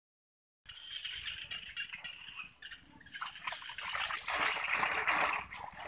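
Muddy water sloshing and splashing as a bamboo frog trap is worked down into wet mud by hand. It begins after a moment of silence and grows louder in the second half.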